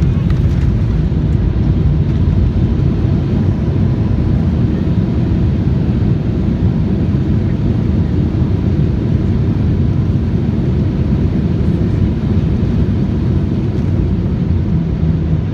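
Steady low rumble of an airliner heard from inside the cabin during the landing: engine and airflow noise, with a faint steady whine above it.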